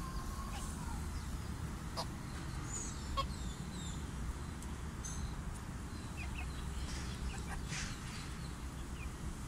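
Serama bantam chickens giving a few short, scattered clucks and calls over a steady low rumble.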